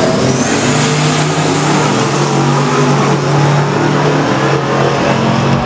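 Two drag racing cars launching side by side and running down the strip at full throttle, engines at high revs, a loud steady engine note.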